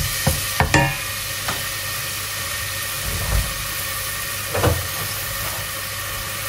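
Chopped onion and garlic sizzling softly and steadily in olive oil in a stainless steel saucepan. The heat is kept gentle so they soften without browning. A wooden spoon stirs and knocks against the pan a few times in the first second, and there is one more dull knock later.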